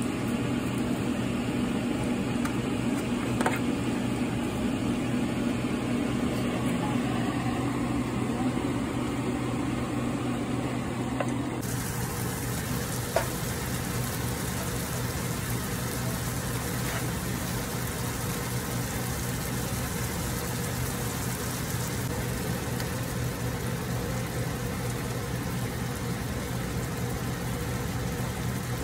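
Roasted tomatoes sizzling in a hot saucepan over a steady low hum, with a couple of light clicks of a metal spoon against the roasting pan. The background changes abruptly about twelve seconds in.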